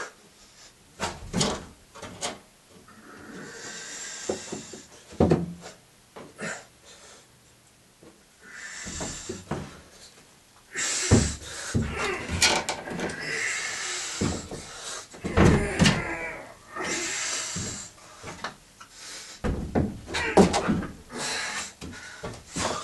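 A climber working up a steep plywood bouldering wall: irregular knocks and thuds of hands and shoes landing on the resin holds and wooden board, with hard breathing and grunts of effort.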